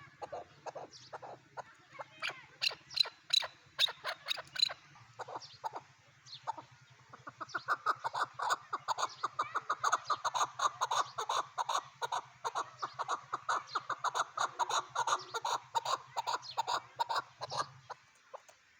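Chukar partridge calling: scattered sharp notes at first, then from about seven seconds in a long, fast series of repeated chuck notes that stops near the end. A faint steady low hum runs underneath.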